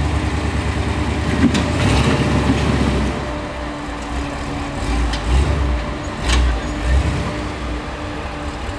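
Lifted 4x4 rock crawler's engine running and revving in surges as it crawls over boulders, with several sharp knocks of tyres or chassis against rock.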